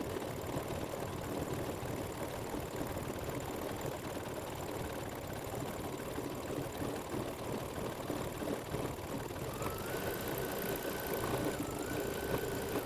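Embroidery machine stitching steadily, its needle running in a fast, even rhythm of strokes. Near the end a thin higher whine rises and holds twice.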